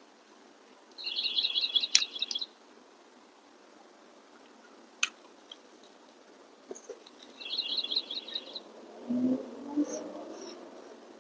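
A songbird singing two short phrases of fast repeated high notes, one about a second in and one near eight seconds. Between them come a few sharp single clicks and, near the end, a brief low murmur.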